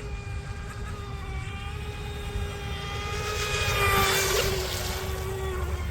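Mini Mono RC boat's 28 mm brushless electric motor and propeller whining at a steady pitch as it runs a lap, swelling louder with a hiss of spray about four seconds in, then easing back.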